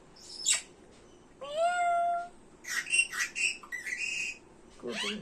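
Pet parrot calling: a meow-like call that rises and then holds its pitch about one and a half seconds in, then a quick run of short, shrill squawks and chirps.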